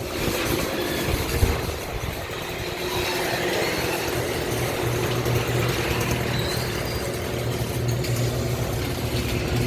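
Chamberlain myQ garage door opener running, its motor humming steadily while the door rattles along its track.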